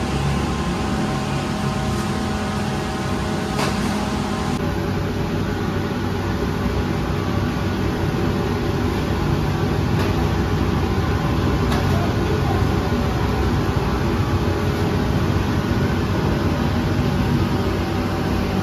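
Steady machine noise with a low hum, broken by a few faint clicks.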